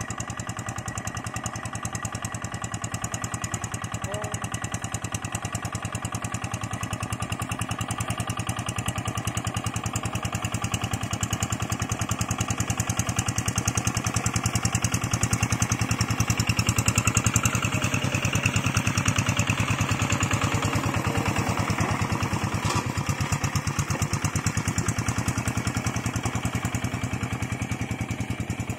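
Old Kubota single-cylinder diesel engine of a hand tractor running steadily under load while it pulls a moldboard plow through wet paddy mud. It grows louder as the tractor approaches, peaking a little past midway, then eases slightly.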